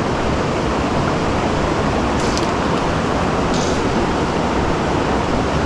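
Steady rushing of a small creek's flowing water.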